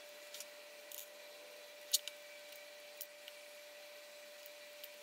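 Small irregular metallic clicks as steel bearing balls are fed one at a time into the ball track of an HGW20 linear guide carriage block with a small screwdriver. There are about seven clicks, the sharpest about two seconds in, over a faint steady hum.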